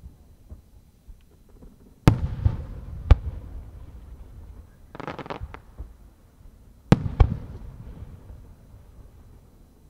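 Aerial firework shells bursting overhead. There is a sharp boom about two seconds in and another a second later. A quick cluster of small pops comes near the middle, and two more booms follow about seven seconds in, each boom trailed by a low rumbling echo.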